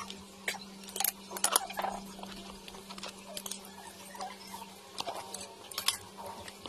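Cooked crab shell being cracked and picked apart by hand: scattered sharp crackles and clicks, several of them sharper snaps, mixed with the mouth sounds of eating. A steady low hum runs underneath.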